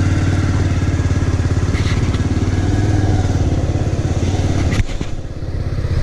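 Motorcycle engine running steadily while riding, with an even pulsing beat. There is a sharp knock nearly five seconds in, and the sound is briefly quieter after it.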